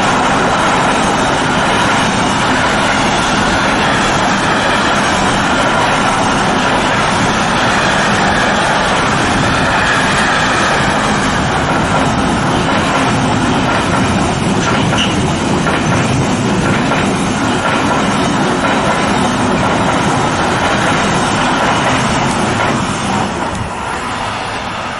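Freight train passing, its wagons running steadily on the rails in a loud, continuous rumble that eases off a little near the end.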